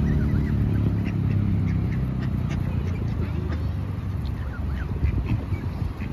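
Mallard ducks quacking and calling at close range, short scattered calls, over a steady low background rumble.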